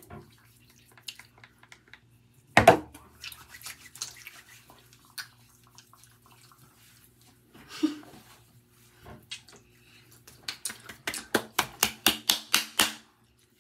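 Hands rubbing lathered face wash over faces, soft wet squishing, with a sudden loud thump about two and a half seconds in. Near the end, a quick even run of about a dozen hand claps, four or five a second.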